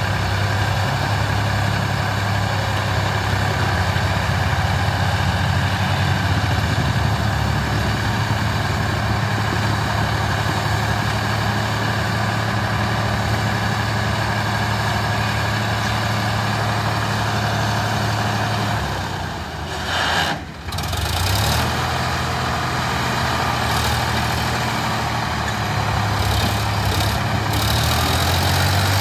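Sonalika DI-750 tractor's diesel engine running steadily while its hydraulic tipping trailer is raised to dump a load of earth. The engine sound dips and breaks off briefly about two-thirds of the way through, then carries on.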